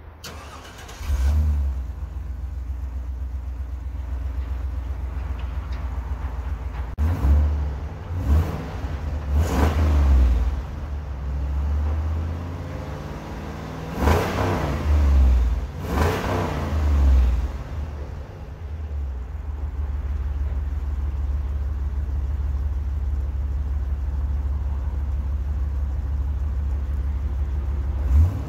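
Chevrolet Silverado's V8 starting about a second in, blipped several times with rising and falling revs, then settling to a steady idle. It runs through a new dual exhaust with an xLerator muffler, which makes it substantially quieter.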